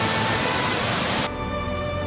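Rushing mountain-river water, a steady loud rush, that cuts off abruptly just over a second in, giving way to background music of sustained held notes.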